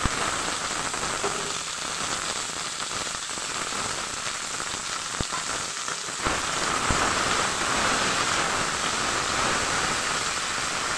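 Onions and green chillies frying in hot oil in a kadai, a steady sizzling hiss. It grows a little louder after about six seconds, once cauliflower, potato and tomato pieces are in the pan, and there are two sharp clicks around five and seven seconds in.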